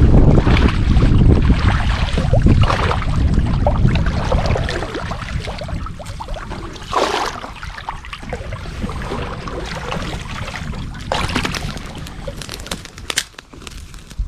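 Wind buffeting the microphone as a loud low rumble that dies down after about five seconds, over a rush of water with a couple of swishes later on. A few sharp clicks come near the end.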